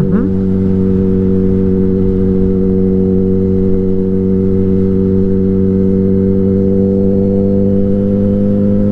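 Yamaha R1 sportbike's inline-four engine running at a steady cruise, its pitch holding level and climbing slightly near the end.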